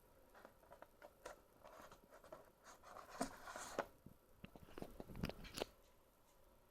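Quiet handling noise of computer hardware being worked by hand: scattered light clicks, taps and rustles. It comes in two busier clusters, about three seconds in and again about five seconds in.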